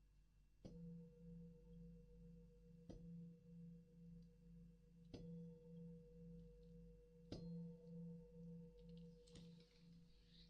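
A singing bowl struck gently four times, about every two seconds. Each strike leaves a ringing tone that pulses slowly as it sustains. A faint rustle comes near the end.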